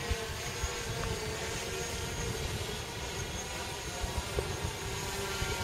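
3D-printed Mavic-clone quadcopter drone flying overhead, its propellers giving a steady, slightly wavering whine, with wind buffeting the microphone.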